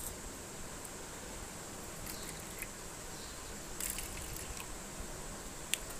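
Water poured from a steel tumbler into small plastic bowls, faint against a steady hiss, with a couple of light knocks of the containers near the end.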